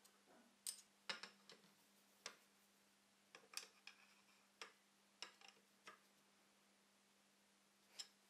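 Quiet, scattered metallic clicks and taps, about a dozen in all, bunched in the first six seconds with one more near the end. They come from a T-handle hex key being seated and turned in the headstock adjustment screws of a small metal lathe during alignment.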